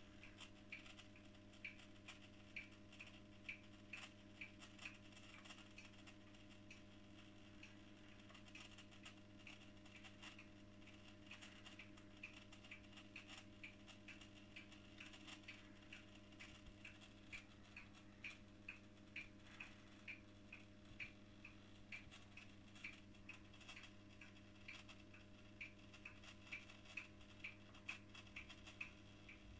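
Scharpf Elektronica 2920 washing machine running quietly: a faint steady hum with light, regular ticking, about two ticks a second.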